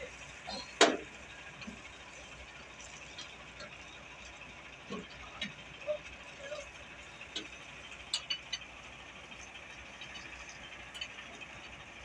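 Scattered metallic clinks and clicks of hand tools and parts being handled on excavator filter fittings. There is one sharp clank about a second in and a cluster of quick clicks near the middle.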